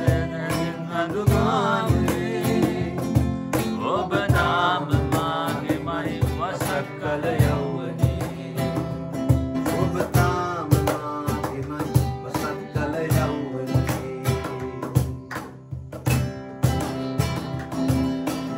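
Acoustic guitar strummed in chords, with a cajón played by hand beating out a steady rhythm, and a man singing over them.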